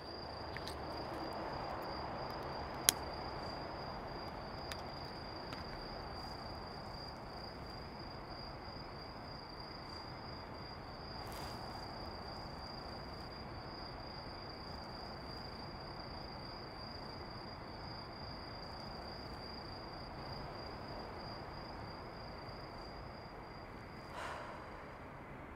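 Night ambience of insects trilling in one steady, high-pitched tone over a faint even hiss, with a single sharp click about three seconds in. The trilling stops near the end.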